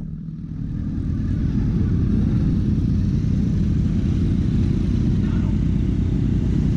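Sport motorcycle engines running at low speed, a steady low rumble, with a brief dip in level at the very start.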